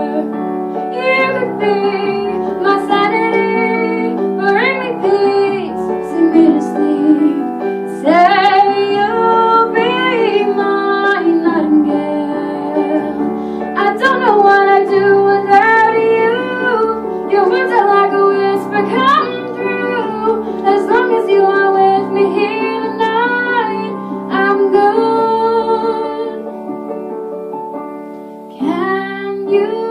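A woman singing with piano accompaniment, the voice holding notes and sliding through ornamented runs, easing off briefly near the end before coming back in.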